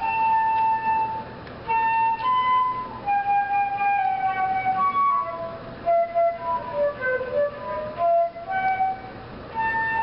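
Silver concert flute playing an unaccompanied solo melody of held notes, one note at a time, with two short pauses between phrases.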